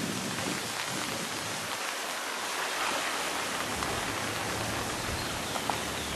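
Swollen, muddy river in flood, its water rushing with a steady noise.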